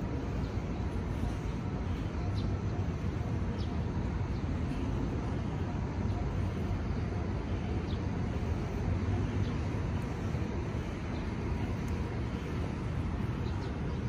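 Steady outdoor background noise: a low rumble with a few faint, short high chirps now and then.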